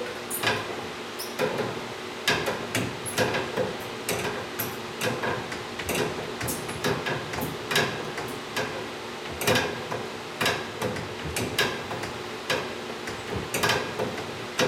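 HHO (oxyhydrogen) torch flame heating a soldered copper pipe joint until the old solder melts and drips, so the joint can be broken loose. Irregular sharp crackles and pops, a few each second, over a steady hum.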